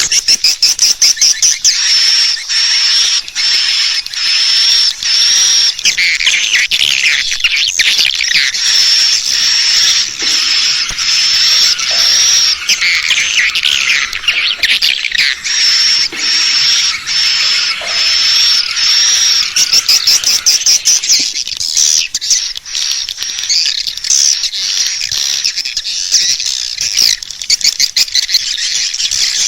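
Swiftlet calls, as played in a swiftlet-house lure recording: dense, high-pitched chirping and twittering. Rapid clicking strokes are mixed with a repeated thin, high whistle, and the sound continues without a break.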